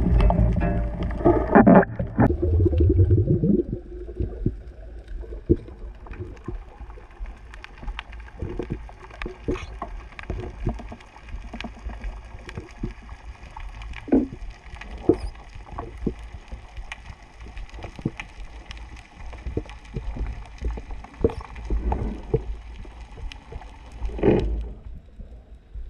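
Underwater sound heard through a waterproof camera housing: a low steady water rumble scattered with many short clicks and crackles. It is louder and churning for the first three seconds, and there is another brief louder swell near the end.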